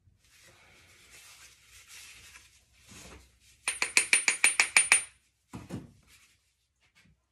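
A rapid run of about ten ringing metallic taps in a second and a half: a metal utensil tapping a bath bomb mold to loosen the hand-pressed bath bomb. Before it, soft rustling of gloved hands working the powder, and one dull knock just after.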